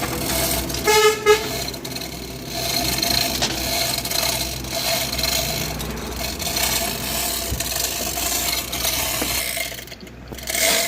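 A vehicle horn toots twice in quick succession about a second in, over the steady running of a JCB excavator's diesel engine and hydraulics at work.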